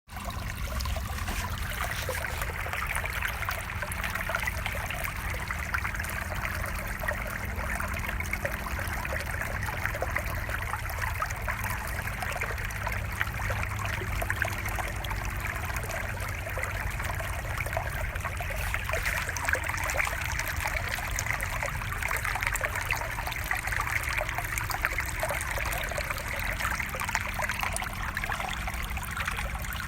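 Steady trickle of running water, like a small stream babbling, with a low rumble underneath.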